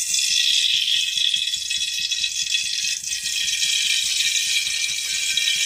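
Ghee sizzling in a heated, empty metal pot just after being poured in: a steady hiss that starts suddenly and holds even.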